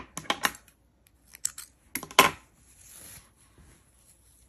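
Scissors snipping and clicking as the crochet yarn is cut: a handful of short sharp clicks, the loudest a little over two seconds in, followed by a soft rustle.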